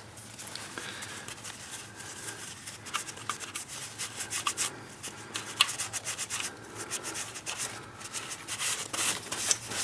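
Irregular rubbing and scuffing of a rag or hands wiping spilled engine oil off the alternator, with scattered small clicks.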